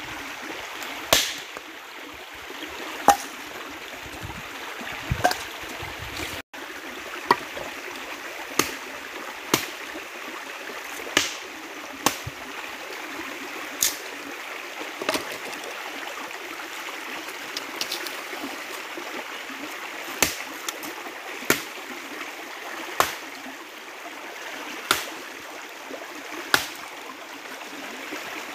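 Dead branches struck against rocks and snapped, a sharp crack every second or two with a pause of a few seconds past the middle, over the steady rush of a stream.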